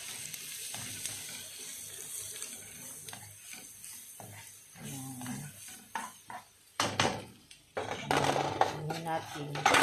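Onions and spices sizzling faintly in a non-stick frying pan, the sizzle dying away after the first few seconds. Then a cooking spoon knocks and scrapes against the pans in a run of clatters, busiest near the end.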